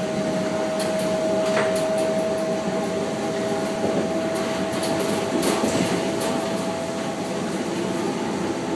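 SNCF Z 5300 electric multiple unit running at steady speed, heard from inside the carriage: a steady rumble of the running gear with a constant high hum and a few light clicks and rattles.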